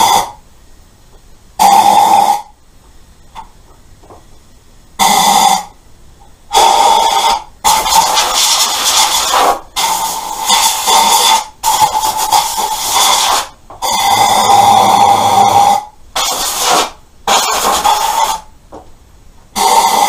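Compressed-air blow gun blasting out the empty spark plug holes of a 1988 Kawasaki ZX-10 engine to clear rust and debris: about ten loud hissing blasts with a whistle, each one to two seconds long, with short pauses between.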